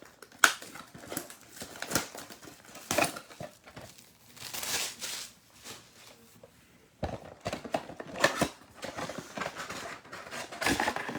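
A football card mega box being torn open and its packs pulled out: irregular cardboard tearing, wrapper crinkling and rustling, with small knocks.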